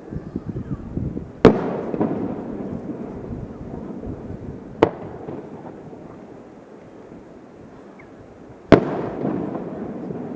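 Aerial fireworks shells bursting: three sharp bangs a few seconds apart. The first and last are the loudest, and each is followed by a few seconds of crackling, rumbling noise.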